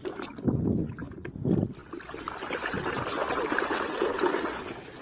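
Water sloshing and splashing in a basin as a plastic toy truck is swished and scrubbed by hand in muddy water. A few heavier sloshes come in the first two seconds, then steady splashing.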